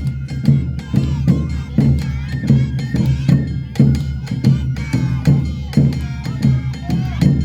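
Live Awa odori dance music: drums beating a steady, fast two-beat rhythm with a wavering melody line above it.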